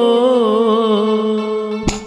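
Devotional bhajan music: a melodic line that waves up and down in pitch over a steady drone, with a sharp percussive hit near the end.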